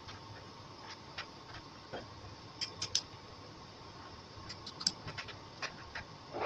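Faint scattered clicks and light metal knocks as an aluminium disc is handled and seated in a three-jaw lathe chuck, over a faint steady hum.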